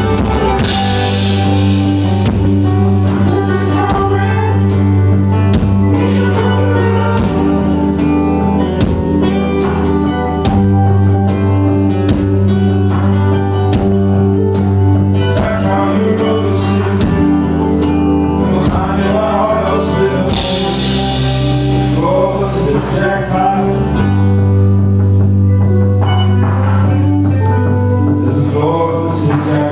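Live rock band playing: a steady drum beat under guitars and held low bass notes that shift every few seconds, with singing rising over the band about twenty seconds in.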